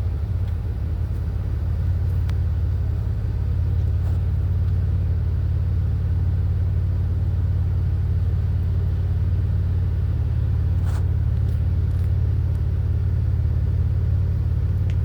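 Steady low rumble of a running car, engine and road noise, with a few faint ticks.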